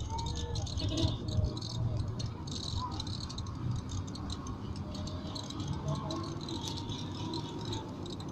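Cabin noise inside a moving vehicle: a steady low road rumble with continual loose rattling and clicking of the vehicle's interior over bumps.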